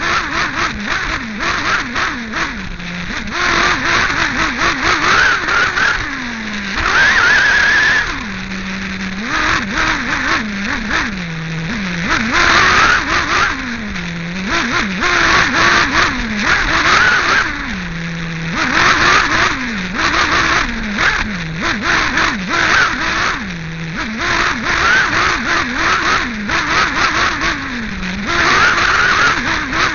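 Team Associated RC8B 1/8-scale nitro buggy's two-stroke glow engine, heard onboard, revving hard, then dropping back toward idle about every three seconds as it laps the track. Frequent short knocks come from the bumpy dirt.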